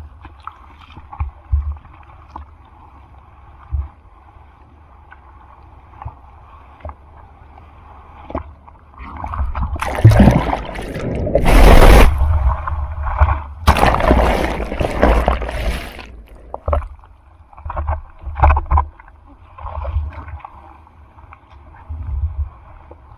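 Typhoon-swell surf heard close to the water: low buffeting and small splashes, then, from about ten seconds in, a loud rush of breaking whitewater lasting some six seconds with a brief break in the middle.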